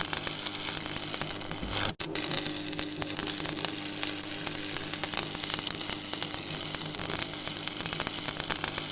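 Electrical buzzing and crackling: a steady mains-type hum under a constant sizzling crackle of arcing electricity. The sound drops out for an instant about two seconds in, then resumes with the hum a little stronger.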